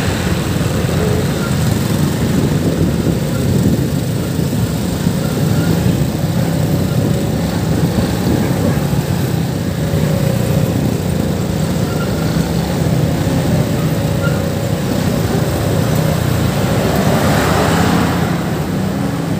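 Motorcycle on the move, its engine running under steady road and wind noise on a handheld phone's microphone. A brief swell rises and falls near the end.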